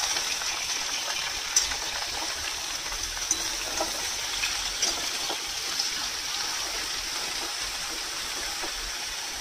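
Ridge gourd pieces sizzling in hot ghee in a steel kadai, a steady hiss, with a few light clicks of a metal spatula stirring them.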